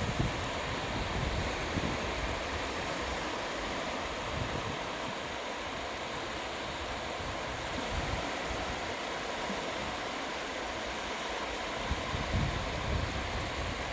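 Sea waves washing onto a sandy beach, a steady wash of surf, with wind buffeting the microphone in low gusts near the start, about eight seconds in, and near the end.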